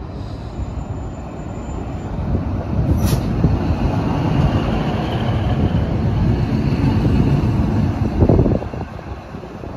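Network Rail Class 153 single-car diesel inspection unit passing close along a station platform: its engine and wheels rumble, building up over the first few seconds and easing off after about eight and a half seconds, with one sharp click about three seconds in.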